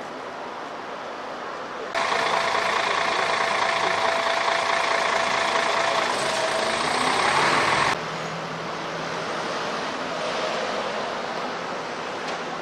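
Street traffic noise from passing road vehicles. About two seconds in, a louder stretch with a steady hum and a whine sets in abruptly; the whine rises near the end, and the stretch cuts off sharply about eight seconds in.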